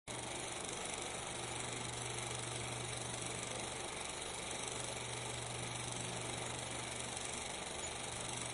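Steady hiss with a constant low hum and no distinct events: the running background noise of a transfer from 16mm film.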